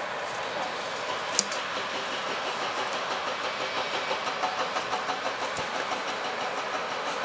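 Steady jet-engine noise from taxiing jet aircraft, including a twin-engine business jet with rear-mounted engines taxiing close by. The noise flutters in a quick uneven pulse through the middle, and there is a sharp click about a second and a half in.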